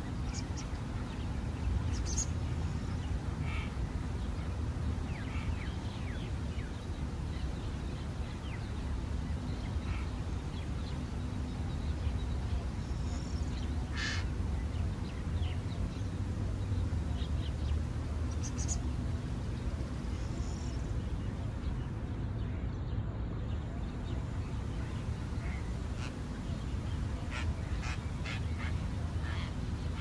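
Outdoor ambience: a steady low rumble with short bird calls scattered through it, a few in a quick cluster near the end.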